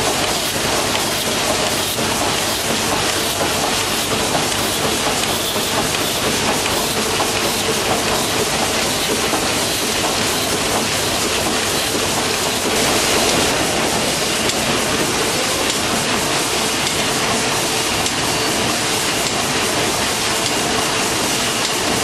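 Triple-expansion steam engine of the steamship Shieldhall running steadily: a dense, even mechanical clatter with steam hiss.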